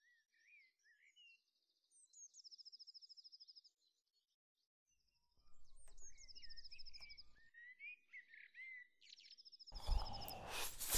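Faint birdsong: repeated high chirps and quick trills with rising and falling notes, as on a dawn soundtrack. A louder rustling, knocking noise comes in near the end.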